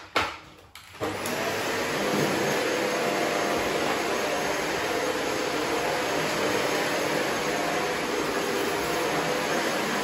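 Shark upright vacuum cleaner switched on after a sharp knock. Its motor spins up over about a second and then runs steadily with a faint whine.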